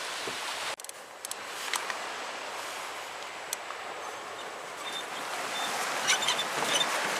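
Sea water sloshing and splashing around a kayak on the open sea, with scattered small clicks and knocks.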